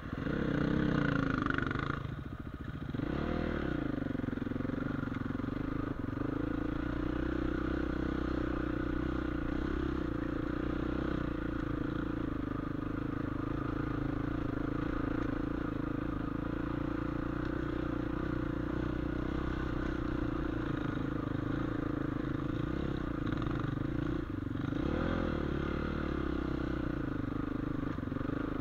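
Dirt bike engine running steadily under way, revving up about a second in and swinging in pitch again near the end.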